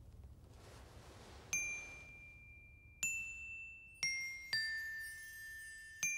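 Sparse glockenspiel-like chime notes, five in all at different high pitches, each struck singly and left to ring and fade, after a faint hiss.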